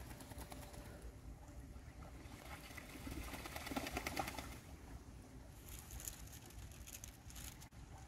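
Mallard ducks splashing as they bathe and dabble in pond water. A burst of splashing swells about three seconds in, followed by lighter spattering of droplets near the end.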